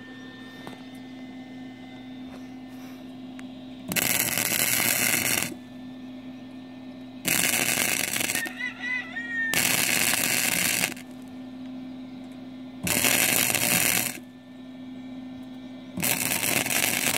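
Lincoln Electric MIG welder laying welds on a steel exhaust pipe: five bursts of crackling arc, each one to two seconds long, with a steady low hum in the pauses between them.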